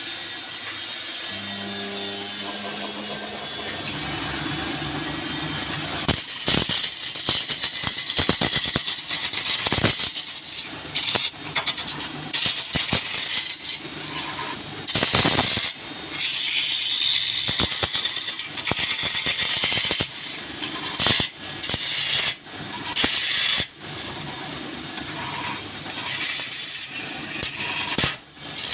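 Wood lathe running while a turning tool cuts the spinning wood. The cuts come in repeated passes from about six seconds in, each a loud, high hiss lasting a second or two.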